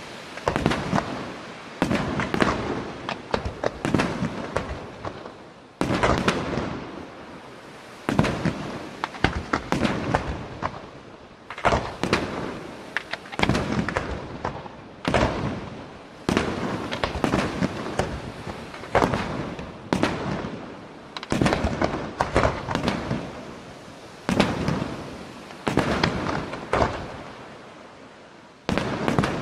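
Aerial firework shells bursting in quick succession: many sharp bangs, each fading in a long echo, with short lulls between volleys.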